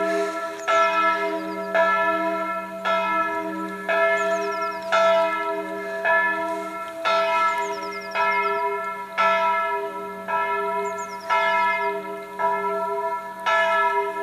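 Church bell ringing, struck about once a second, each stroke ringing on into the next.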